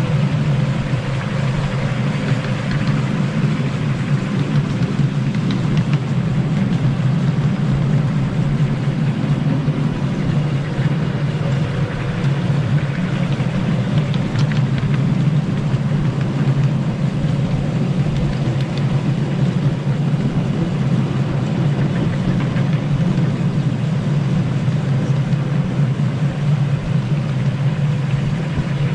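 A miniature railway locomotive's engine running steadily at an even speed, with no change in pitch.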